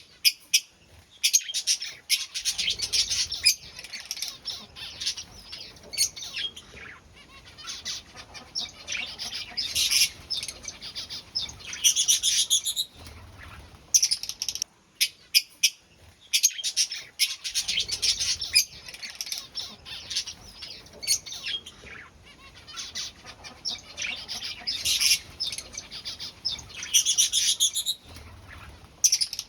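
Cockatiel chicks begging while a parent feeds them: rapid, pulsing high-pitched chirps in bouts of a few seconds, with short pauses between.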